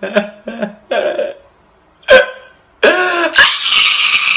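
A man's voice: a few short vocal bursts, then from about three seconds in a loud, drawn-out wail.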